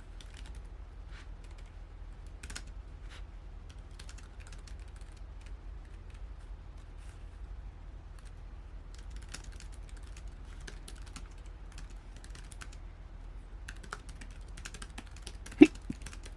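Typing on a foldable Bluetooth keyboard's scissor-switch keys: light, irregular key clicks, coming in quicker runs in the second half, with one louder knock near the end.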